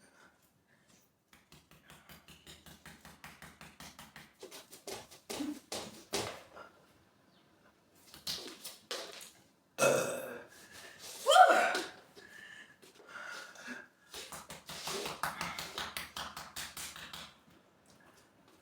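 A woman burping several times in a row, the burps forced up on purpose. Some are long with an even flutter. The loudest comes about halfway through and rises then falls in pitch.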